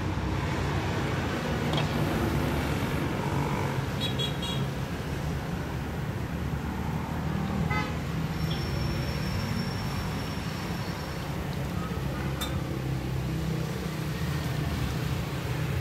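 Steady low rumble of road traffic with vehicle engines running, broken by a few short ringing clinks of a ladle against a ceramic bowl and an aluminium pot.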